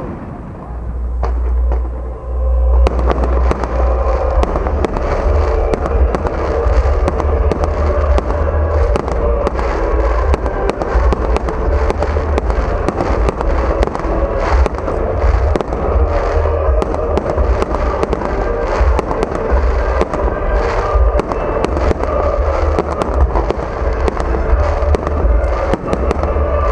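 Fireworks going off in rapid succession: a dense crackle of many sharp bangs over a heavy low rumble. It thickens suddenly about three seconds in and then keeps going without a break.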